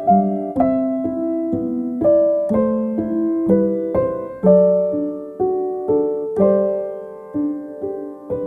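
Background piano music: a slow, gentle melody of single struck notes over soft chords, each note fading away, about two notes a second.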